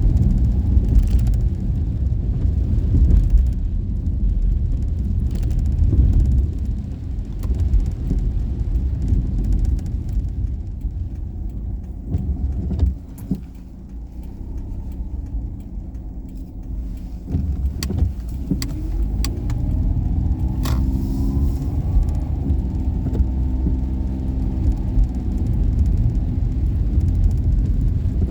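Daihatsu Esse kei car driving, its small three-cylinder engine and road rumble steady, easing off for a few seconds about thirteen seconds in, then rising in pitch as it accelerates again about eighteen seconds in.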